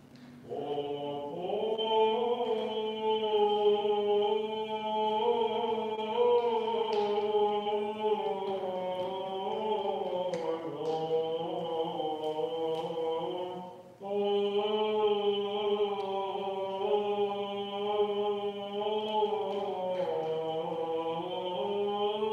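Byzantine chant of the Greek Orthodox liturgy, sung in long, slow, drawn-out phrases without clear words. There is a short breath-break about fourteen seconds in, then a new phrase.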